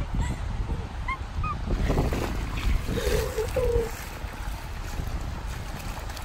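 Wind buffeting the microphone, with splashing as a person wades through shallow seawater, and a few short calls, two lower ones about three seconds in.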